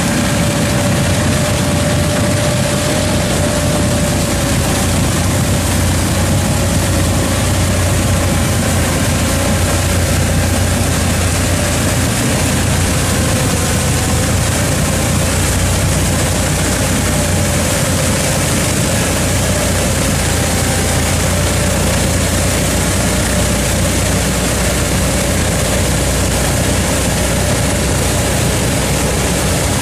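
Tractor-driven rotary ditcher working under load: the tractor engine and the spinning cutter wheel flinging mud and water make a continuous, loud, heavy mechanical noise with a low rumble and a faint steady whine.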